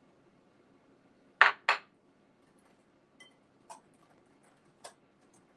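Two sharp knocks of a small ceramic bowl against hard kitchen surfaces as flour is tipped from it into the batter, then a few light clinks of a wire whisk against a glass mixing bowl.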